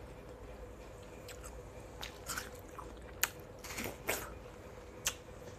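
Slice of watermelon being bitten and chewed: a handful of short, crisp crunches, starting about two seconds in.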